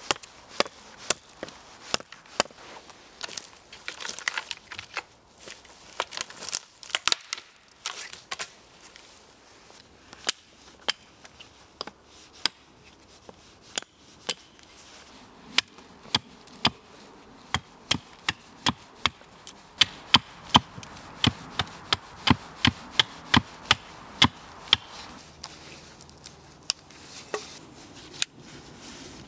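A small axe chopping into sapling wood: a string of sharp wooden chops, spaced irregularly at first, then coming quicker, about two a second, in the second half.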